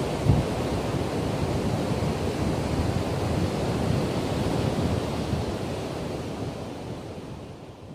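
Strong wind buffeting the microphone over breaking surf, a steady rumbling noise that fades out over the last few seconds.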